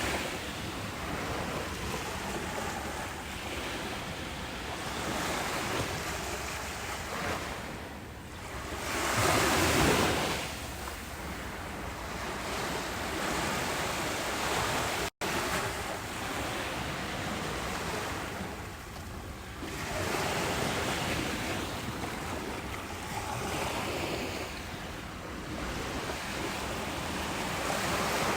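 Ocean waves washing onto a beach: a steady surf hiss that swells and ebbs, with one louder wave breaking about a third of the way in. About halfway through, the sound cuts out completely for a split second.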